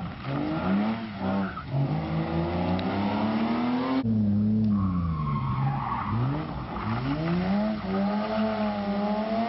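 BMW E30 rally cars driven hard through a tight corner, one after the other. The engine revs dip and climb repeatedly through the gear changes, with skidding tyres as the cars drift.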